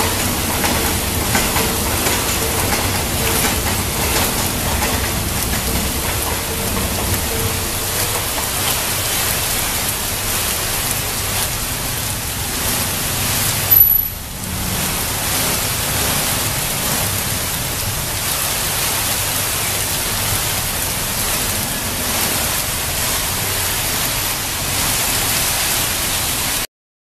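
Steady rain falling on a wet road, with motorbikes and cars passing through the water. About halfway through comes one brief, sharp click, the loudest sound here.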